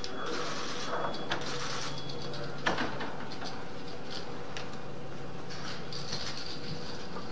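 Hallway room noise: a steady low hum, with scattered clicks and a sharper knock just under three seconds in.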